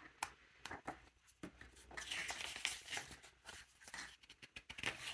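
Faint rustling and light clicks of paper magazine pages being handled and turned, with a slightly fuller rustle about two seconds in.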